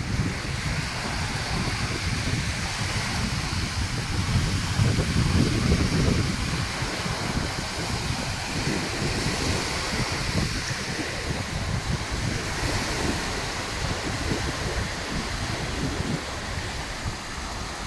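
Small waves breaking and washing up a sandy, pebbly shore, with wind buffeting the microphone in a low rumble that swells for a couple of seconds near the middle.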